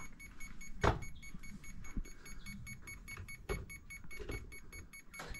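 RC boat electronic speed controller beeping constantly, several short high beeps a second, with a few sharp knocks, the loudest about a second in. The controller won't arm or enter its throttle setup because the throttle is set the wrong way round.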